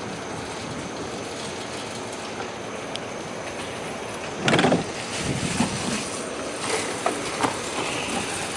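Steady background hiss, broken about four and a half seconds in by one loud clunk, then a few lighter knocks.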